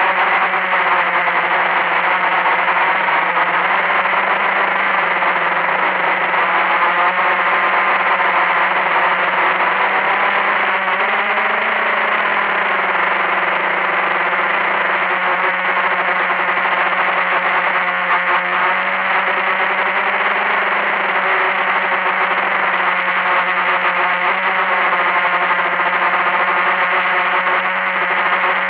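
Blade 350 QX quadcopter's four brushless motors and propellers running with a steady whine, heard close up from a camera mounted on the drone itself; the pitch wavers slightly now and then as the drone manoeuvres.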